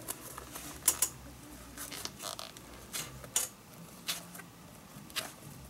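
Needle-nose pliers gripping and tugging a leather lace out of a baseball glove: about half a dozen short sharp clicks with faint leather rustling between them.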